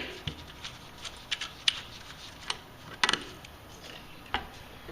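A few light, irregular clicks and taps, about six in all, spaced unevenly: small handling noises.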